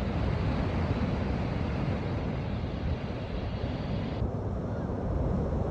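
Wind buffeting the microphone: a steady low, fluttering noise with no bird calls, its upper hiss dropping away suddenly about four seconds in.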